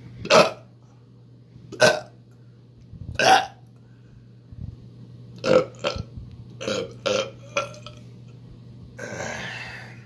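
A man burping repeatedly: three loud burps about a second and a half apart, then a quicker run of five shorter ones, and a softer, longer one near the end.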